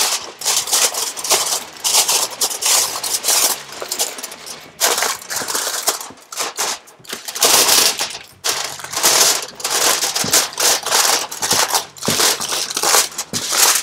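Aluminium foil crinkling and crackling as it is crimped and pressed down around the rim of a roasting pan, in irregular bursts, to make a tight seal.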